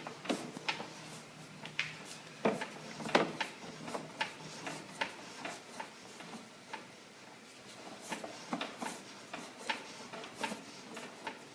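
Irregular light clicks and knocks, a few a second, over a faint steady low hum.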